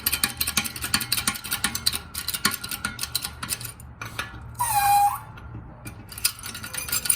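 Metal parts clinking and clattering as the press tool, bolt and washers are handled, with one short squeak about five seconds in.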